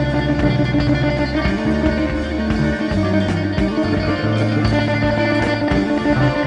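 Rock music with guitar over a low bass line that moves between held notes.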